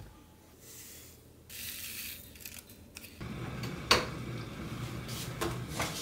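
Soft handling noises, then from about three seconds in an electric kettle heating water with a steady rumbling hiss, with a few sharp clicks over it.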